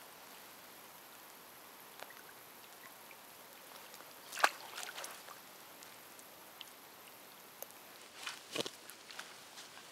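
Faint steady outdoor hiss broken by a few sharp taps and knocks: one loud one about four and a half seconds in and a short cluster near the end.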